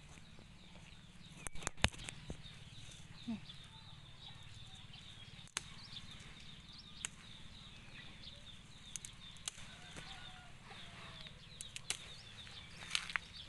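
Rustling of leafy cha-om (climbing wattle) shoots and a scatter of sharp clicks as they are handled and picked by hand, with faint high bird chirps in the background.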